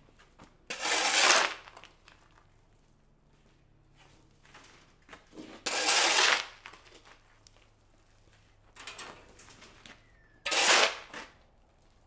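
Steel shovel blade scraping across a concrete slab as it scoops loose dirt: three loud scrapes, each under a second, spaced about five seconds apart, with fainter scuffs between.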